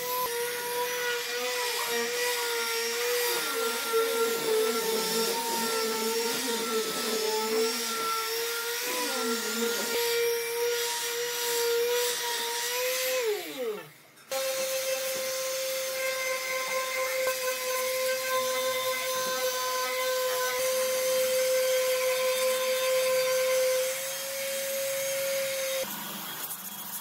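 Electric palm sander running steadily against a hardwood tabletop with a steady whine. It winds down about 13 seconds in; after a sudden break it runs again at a slightly higher pitch until near the end, when it gives way to quieter hand sanding with sandpaper.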